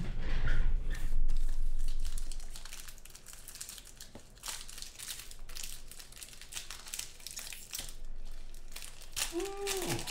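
Black foil wrapper of a 2014 Panini Black Gold football card pack being torn open and peeled by hand, a dense crinkling and crackling of thin foil. Heavier low handling noise comes in the first two seconds.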